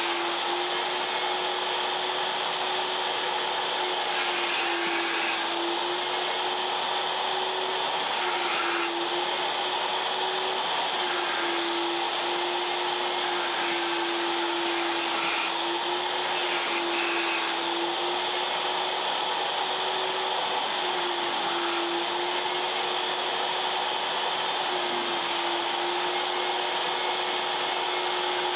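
Vacuum cleaner running steadily, its motor pitch shifting slightly up and down every few seconds.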